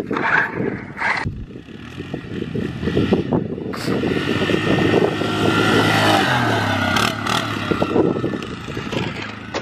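Yamaha Grizzly 700 ATV's single-cylinder four-stroke engine running as the quad is ridden across grass, the revs rising and then dropping off about the middle.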